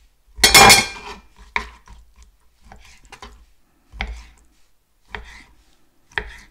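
Kitchen knife slicing raw chicken breast into chunks, the blade knocking and scraping on the cutting board in several separate strokes. The longest and loudest stroke comes about half a second in.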